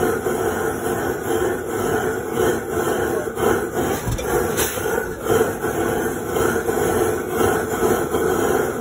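Petrol blowlamp burning steadily with an even rushing noise, its flame heating the hot-bulb cylinder head of a low-compression single-cylinder diesel before the engine is started.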